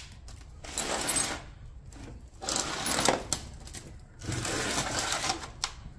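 Metal motor parts rattling and scraping in three short bursts, each about a second long, as a golf cart electric motor's armature and bearing housings are handled on a workbench.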